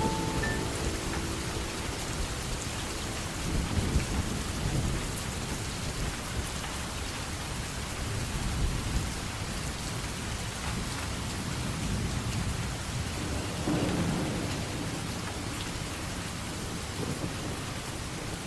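Steady rain with low rolls of thunder, one about four seconds in and another later on.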